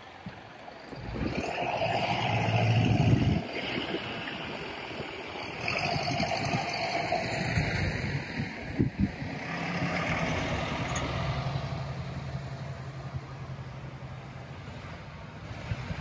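Road traffic on a snow-covered street: several vehicles pass one after another, each swelling and fading as its tyres go by on the snow. In the second half a low, steady engine hum sits under it.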